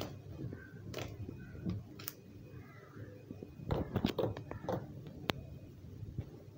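Clear slime mixed with clay squeezed and kneaded by hand, giving irregular wet clicks and pops from trapped air, with a quick run of pops about four seconds in.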